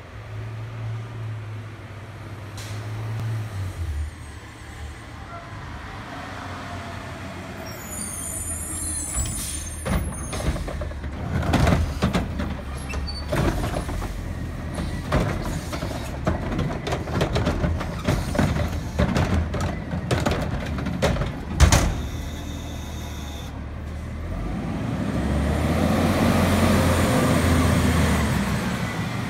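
A garbage truck's diesel engine runs as it pulls up. About eight seconds in there is a short air-brake hiss. Its automated front arm then grabs the yard-waste cart, tips it and shakes it empty, with a long run of knocks and bangs, before the engine revs up near the end as the truck pulls away.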